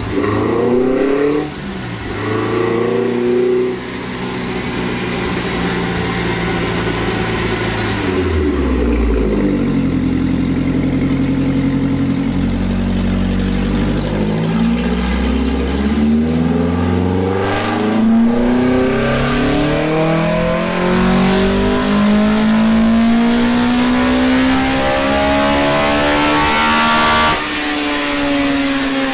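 Toyota 4A-GE twin-cam four-cylinder on individual throttle bodies running on a chassis dyno. After a few brief revs the engine settles low, then makes a full-throttle pull with its note rising steadily for about twelve seconds. Near the end the throttle is shut abruptly and the revs fall away.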